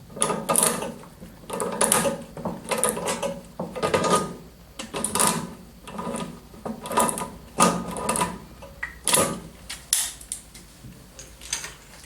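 Plumbing fittings for a bidet's water supply, a T-connector and elbow, being screwed together and tightened by hand. It sounds as a series of short rasping, ratchet-like strokes, about one a second.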